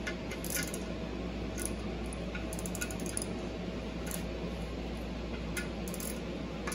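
Hand ratchet clicking in short strokes as the clutch pressure plate bolts are snugged down onto the flywheel, with a quick run of clicks around the middle. A wall-mounted air conditioner hums steadily underneath.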